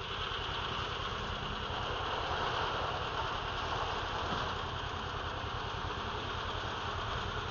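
A small engine or motor running steadily, with a low, even throb under a constant hiss.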